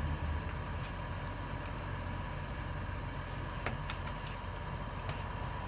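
Steady low mechanical hum with a faint steady high tone. Over it, a few light clicks and ticks as the plastic wiring connector of the fuel pump flow control module is handled and pushed back on.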